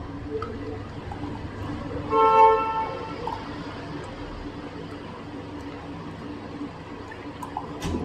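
A vehicle horn honks once, a steady note about a second long, about two seconds in, over a steady low background hum.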